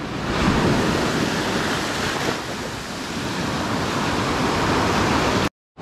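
Rough, storm-driven sea: waves breaking and washing in steadily, with wind noise on the microphone. The sound cuts off suddenly just before the end.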